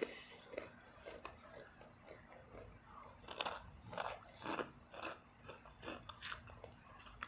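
Crunching and chewing of rolled tortilla chips (Takis), with irregular crisp bites that get louder about three seconds in.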